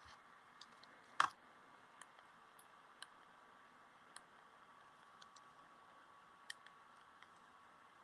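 Faint, irregular clicks and taps of hands operating a computer at a desk, with one louder click about a second in, over a faint steady high-pitched tone.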